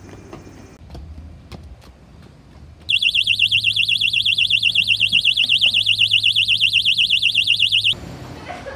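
AED storage cabinet's door alarm going off as the cabinet is opened: a loud, high electronic tone warbling rapidly, lasting about five seconds from about three seconds in and cutting off suddenly. Before it, faint footsteps.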